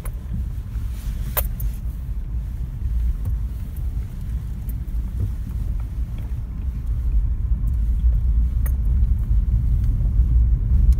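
Steady low rumble of a car driving, heard from inside the cabin, with a sharp click about a second in and another near the end.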